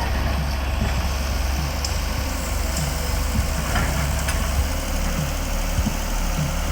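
Excavator's diesel engine running steadily with a low rumble, with a few short knocks.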